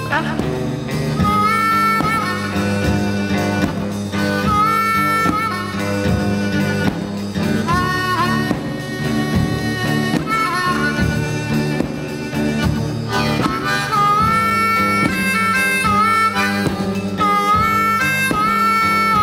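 Blues harmonica solo with held and bent notes over a steady band backing, played back from a mono vinyl record.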